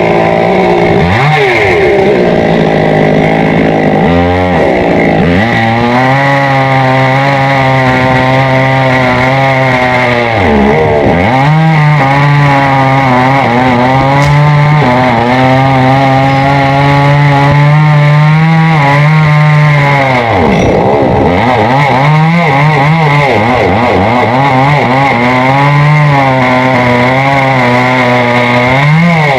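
Chainsaw running at high revs while cutting tamarind wood. Its pitch drops sharply several times as the chain loads up in the cut, then picks back up.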